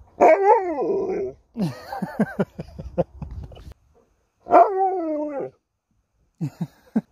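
Alaskan Malamute 'talking': long, drawn-out vocal calls that slide up and down in pitch. One comes right at the start and another about halfway through, with shorter sounds in between.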